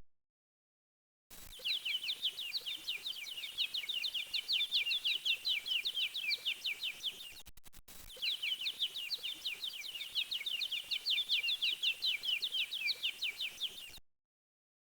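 A bird's rapid trilling song of quick, high downward-sweeping chirps, in two runs of about six seconds each with a brief break between. It starts about a second in out of silence and cuts off suddenly near the end.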